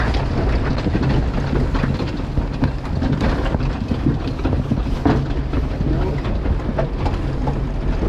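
Massey Ferguson 711 potato harvester running in the field, its webs and elevator rattling and clattering with soil and stones, over the steady drone of the Massey Ferguson 35X tractor towing it.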